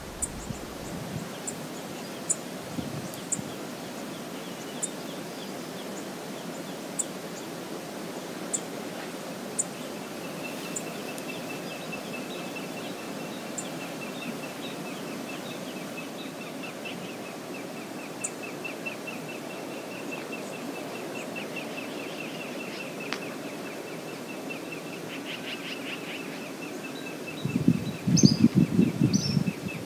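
Steady rush of wind and river water. In the first ten seconds there are sharp high ticks about once a second, and from about ten seconds in a long, fast chattering run of small calls carries on to the end. Near the end a strong gust buffets the microphone with a low rumble, the loudest thing heard.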